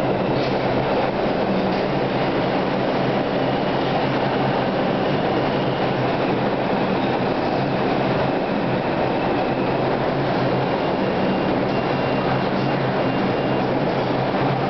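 R142 subway train pulling into a station: a steady, loud rumble of wheels on rail and traction motors with a low hum, which holds without a break.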